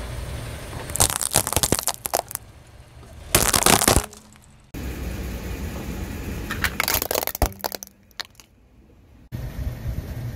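Car tyre rolling over and crushing crunchy objects: clusters of sharp cracks and crunches about a second in, loudest around the middle, and again later, over a low engine rumble.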